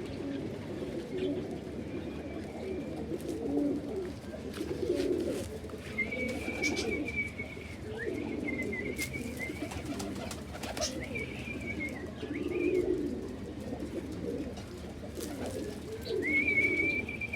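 Domestic pigeons cooing over and over, with a thin, wavering high-pitched call cutting in several times and a few light clicks.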